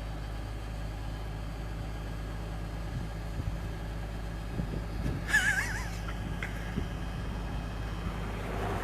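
Tractor engine idling steadily behind a large round baler, with a few metallic knocks and a short wavering squeak about halfway through.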